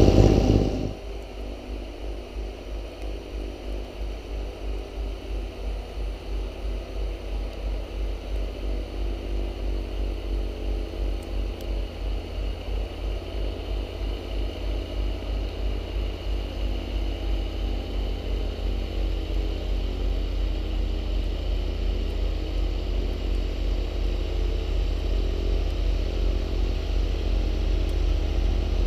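John Deere X748 garden tractor's three-cylinder diesel engine running under load while it drives its 54-inch front snowblower throwing snow, a steady low throb. It is loud and close for about the first second, then more distant, growing slowly louder toward the end.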